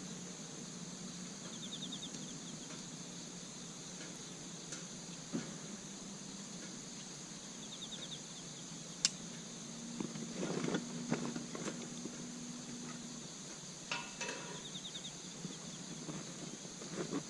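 Insects chirring steadily, with a short rapid trill that comes three times, about every six or seven seconds. Scattered clicks and knocks run through it, busiest about ten seconds in.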